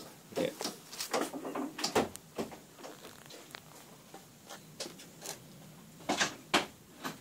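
Handling noise: scattered short knocks, clicks and rustles, with louder clusters about a second in and again about six seconds in.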